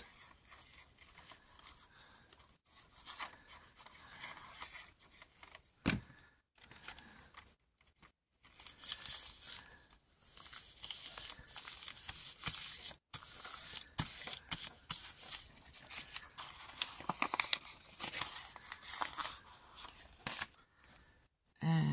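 Paper rustling, rubbing and crinkling as hands smooth a glued book page onto scrunched brown packing paper and handle the crinkly pocket. Faint at first, busier and louder from about nine seconds in.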